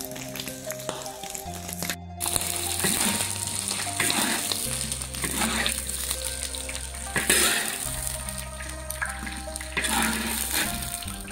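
Hot oil sizzling in a large wok as small river prawns are tipped in and stirred with a metal spatula, the hiss starting about two seconds in and surging several times. Background music with bass notes plays throughout.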